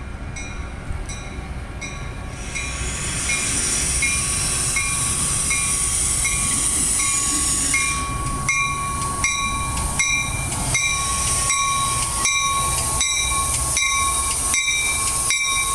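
Metra commuter train running past, with a steady rumble and hiss. In the second half its wheels click over the rail joints about twice a second, and a bell-like tone repeats throughout.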